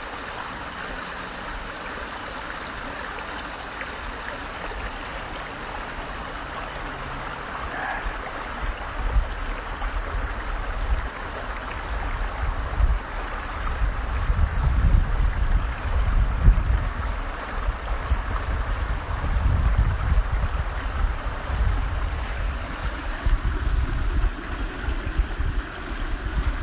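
Small rocky creek flowing over stones: a steady rush of water. From about a third of the way in, irregular low rumbling buffets on the microphone come in over it and are the loudest part.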